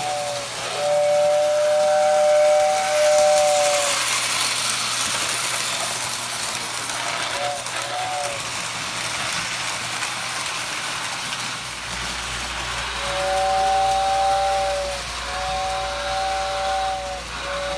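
Lionel toy train whistle tender blowing its two-note electric whistle in blasts: a short toot and long blasts at the start, a brief pair of toots around the middle, and long blasts again near the end, over a steady rushing hiss. A low hum comes in about two-thirds of the way through.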